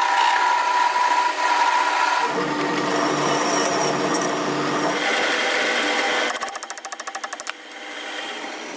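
Metalworking power tools running in a string of short cuts: a steady high-pitched whine for the first two seconds, then a lower machine hum, and near the end a rapid ticking of about ten strokes a second.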